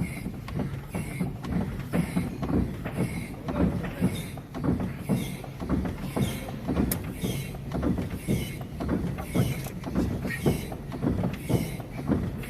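Renault T truck cab being rocked back and forth on its suspension, giving a rhythmic low thump with a hiss-like creak about once a second, over a steady low hum. The rocking is done to bring out a knock in the cab suspension.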